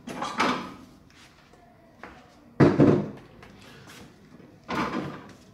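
Kitchen handling noises: three short bursts of knocks and rustling, the loudest a sudden clatter about two and a half seconds in.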